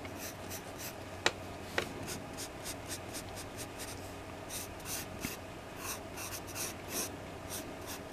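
Pencil scratching across paper in short, quick sketching strokes, several a second. Two sharp clicks come about a second in.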